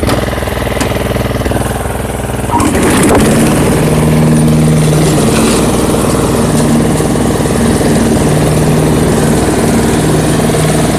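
Riding lawn mower engine running, throttled up about two and a half seconds in and then running louder, its tone swelling and easing at intervals.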